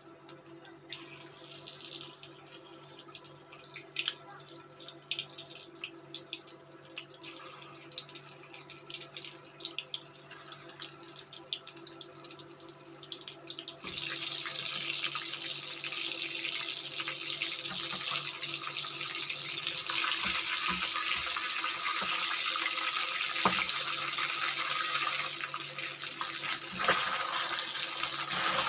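Hot oil in an iron kadhai crackling and spitting sparsely. About halfway through, pieces of turmeric-coated fish go into the oil and it breaks suddenly into loud, dense sizzling as they deep-fry.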